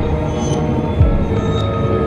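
Dark, ominous ambient music: sustained low drones with deep throbbing pulses, a higher held tone entering near the end.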